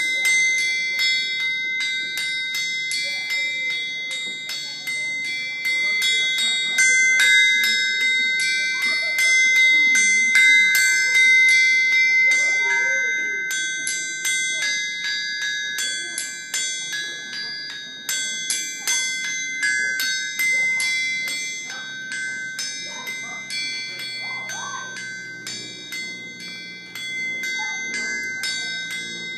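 Blacksmith's forged anvil played as a musical instrument: a quick, rhythmic run of hammer strikes, each leaving a high, steady metallic ring that carries on under the next blow.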